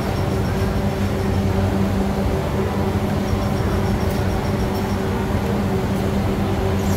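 A steady low machine hum, with an unbroken drone, over the constant background din of a busy market.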